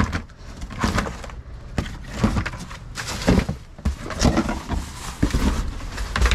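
Rummaging through cardboard boxes of broken dishes and glassware: irregular clatters and knocks of shards and cardboard, with rustling in between.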